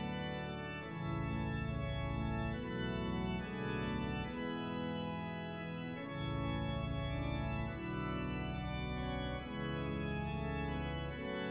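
Slow background music of sustained organ chords, changing every second or two.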